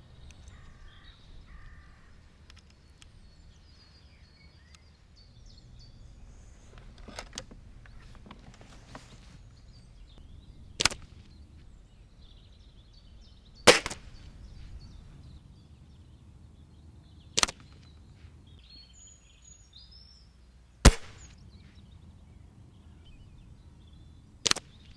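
Five sharp snaps from a BSA Comet EVO break-barrel spring-piston air rifle being fired, a few seconds apart, from about eleven seconds in.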